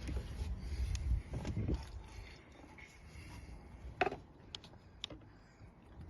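Handling noise while working on the engine: a low rumble in the first two seconds, then a few sharp clicks and knocks, the loudest about four seconds in.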